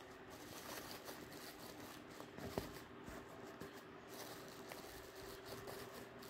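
Faint rustling of tissue paper with a few light clicks and taps as the paper is tucked around bars of soap in a gift basket.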